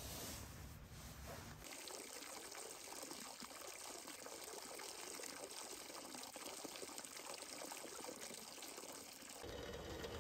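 Water from a bamboo spout running in a thin steady stream into a water basin, splashing and trickling, from about one and a half seconds in. Near the end it gives way to a low steady rumble.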